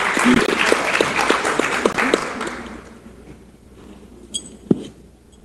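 Audience applauding, the clapping dying away about two and a half seconds in. Near the end, a short ringing clink and then a single thump.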